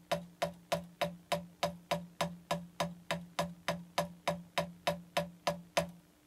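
A drumstick bouncing on a practice pad, driven by the little finger alone in the flying-fingers technique: single strokes at an even pace of about three a second, stopping near the end.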